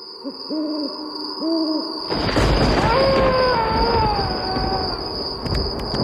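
Spooky night sound effects: an owl hoots a few times over a steady high tone, then about two seconds in a loud rumble swells up with a long, wavering howl-like wail that slowly falls in pitch.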